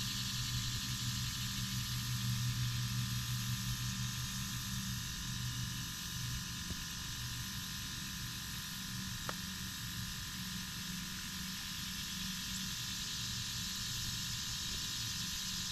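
Distant airboat engine and propeller droning steadily as a low hum, a little louder two to four seconds in, over a steady high-pitched hiss.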